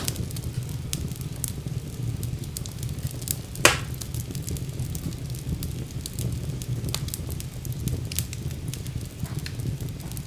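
Wood fire burning in a fireplace: a steady low rumble of the flames with scattered crackles and one louder pop about three and a half seconds in.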